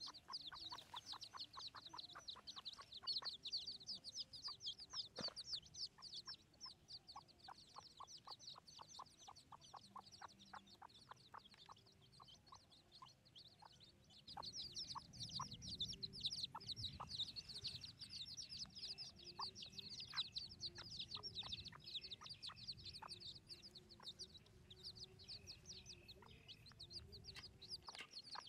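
A wild hen and her brood of chicks: the chicks peep quickly and continuously in high, short notes, and the hen clucks softly in short regular notes beneath them. The peeping grows louder about halfway through.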